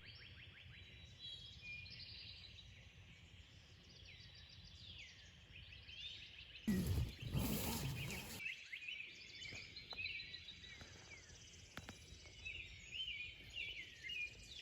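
Several birds chirping and singing, with many short, quick calls. About seven seconds in there is a louder rushing noise that lasts about a second and a half.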